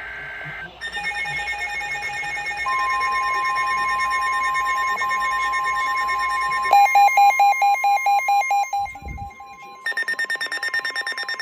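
Several NOAA weather radios sounding the alert for a severe thunderstorm warning. The steady 1050 Hz Weather Radio warning tone is joined about seven seconds in by loud, fast pulsed beeping alarms, which break off briefly and start again near the end.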